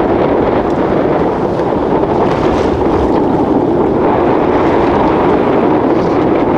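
Strong wind buffeting the microphone, heard as a loud, steady rumbling noise over open water.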